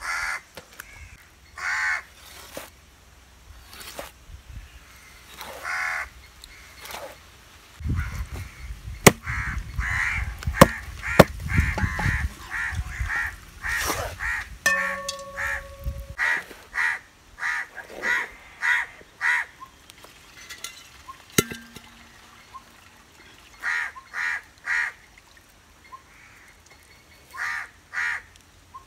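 Crows cawing over and over, short calls in quick runs. A few sharp knocks and a low rumble sit under the calls in the middle stretch.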